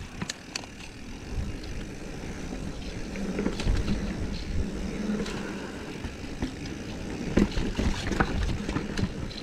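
Mountain bike riding along a dirt singletrack trail: a steady rumble of tyres and wind, with the chain and frame rattling in sharp clicks over bumps. It gets louder about a second and a half in.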